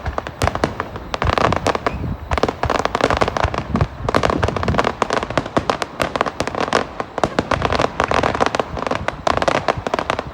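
Fireworks barrage: a dense, rapid run of sharp bangs and crackling bursts one on top of another, stopping abruptly at the end.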